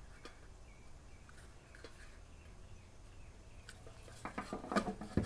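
Quiet handling of a bathroom exhaust fan's motor, mounting plate and plastic blower wheel: a few faint clicks, then a run of small clicks and taps about four seconds in, ending in a sharper knock near the end.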